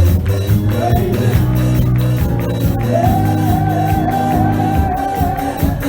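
Gospel worship music with a steady percussion beat, and a voice holding a long wavering sung note in the middle.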